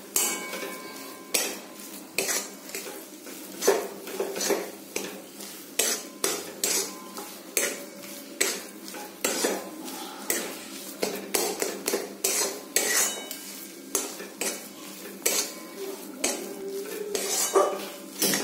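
Metal spatula scraping and clinking against a metal kadai in repeated strokes, roughly one or two a second, as a thick soybean paste is stirred and fried until its water dries off.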